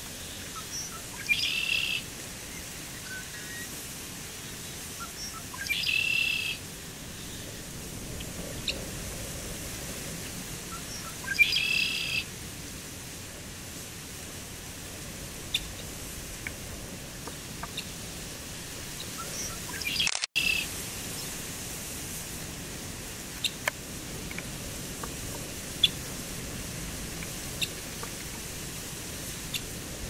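Male red-winged blackbird singing its trilled song, repeated about every five seconds: three songs in the first dozen seconds and a fourth about twenty seconds in that cuts off abruptly. Short sharp chips come in between.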